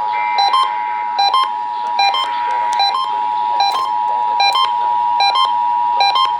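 Emergency Alert System attention signal: a steady two-note tone, with short electronic alert beeps repeating about every 0.8 seconds over it.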